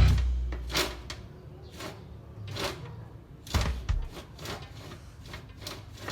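Irregular knocks and clicks, about a dozen spread over several seconds, a few of them heavier, typical of a truck-bed drawer or fridge slide being worked open and shut.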